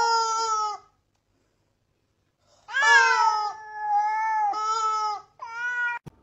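Yellow rubber screaming-chicken toy being squeezed, letting out long, steady-pitched screams. One scream cuts off a little under a second in, then after a silence of nearly two seconds comes a longer scream that dips and wavers, and a short one near the end.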